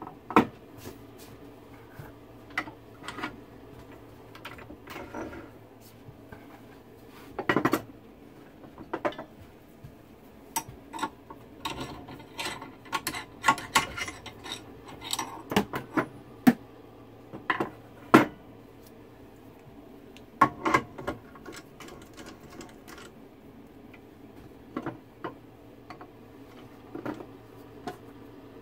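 Irregular metal clinks, clicks and knocks from changing accessories on a mini wood lathe that is not running: spindle fittings are handled and a metal scroll chuck is fitted and worked with its chuck key.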